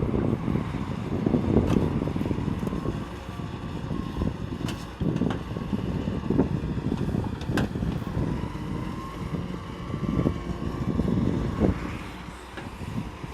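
Excavator engine running with a steady low rumble that swells and eases, with scattered sharp clanks and knocks.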